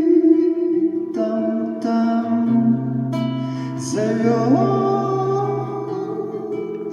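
Live song: acoustic guitar playing under a man's long held sung notes, with no clear words; about four and a half seconds in the voice slides up in pitch.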